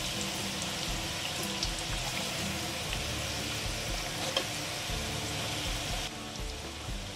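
Whole potatoes sizzling steadily as they fry in hot oil in a pan, with a couple of sharp clicks as a metal slotted spatula turns them. Background music plays underneath.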